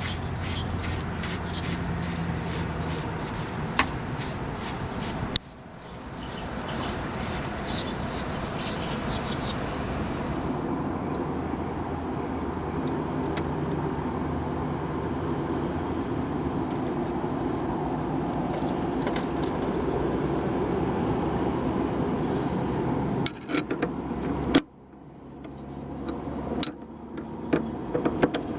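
Car running along, a steady road and engine noise with light rattles and clicks, broken off suddenly twice.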